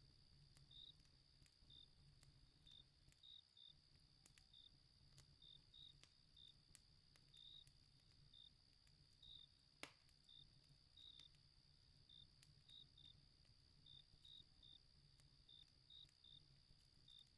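Faint night ambience of crickets chirping steadily, with a campfire crackling: scattered small pops and one sharper crack about ten seconds in.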